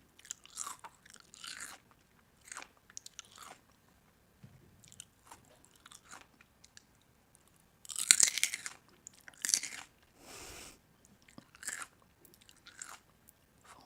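Crunchy food being bitten and chewed in irregular crunches, the loudest about eight and nine and a half seconds in.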